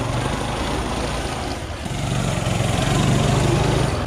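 Small engine of a child's snowmobile running as it drives over snow. It eases off briefly about halfway through, then picks up and runs harder.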